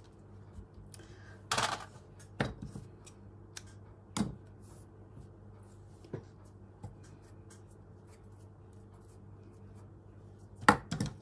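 Hand-sewing supplies being handled while fresh embroidery thread is fetched and cut: a few scattered short rustles and small clicks, with the sharpest cluster of clicks near the end, like scissors snipping.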